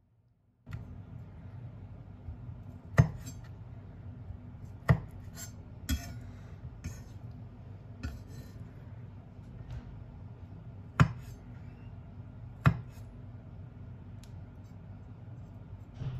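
Kitchen knife knocking against an end-grain wooden cutting board as cherry tomatoes are sliced: five sharp knocks spaced unevenly, with a few fainter clicks between them, over a steady low hum.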